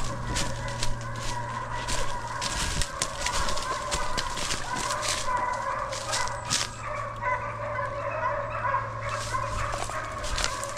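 A pack of deer hounds baying together while running a trail, their cries overlapping. Footsteps crunch through dry leaves and brush.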